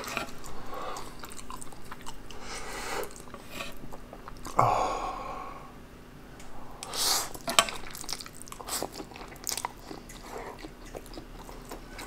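Close-miked eating of spicy instant black bean noodles: wet chewing and mouth smacks throughout, with a louder slurp of noodles about seven seconds in.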